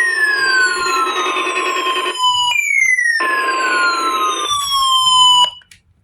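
NOAA Weather Radio's 1050 Hz warning alarm tone sounding through static as a weekly test. Two falling siren-like sweeps, each about three seconds long and sliding down to the tone's pitch, are layered over it. The sound breaks briefly about two seconds in and cuts off about a second before the end.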